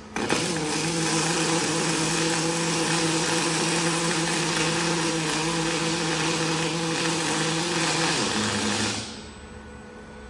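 Robotic gas-shielded wire (MIG/MAG) welding arc burning on a steel H-beam connector: a steady hiss with a steady hum under it. It strikes sharply just after the start and cuts off about nine seconds in, as the weld bead ends.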